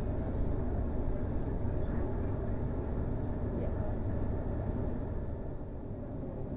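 Steady rumble of a Sydney Trains electric passenger train running along the line, wheels on the rails, heard from inside the carriage.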